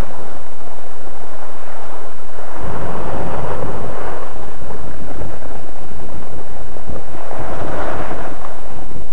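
Loud wind buffeting on the microphone of a camera moving downhill on skis: a rumbling rush with hiss that swells twice, the low rumble coming in strongly a couple of seconds in.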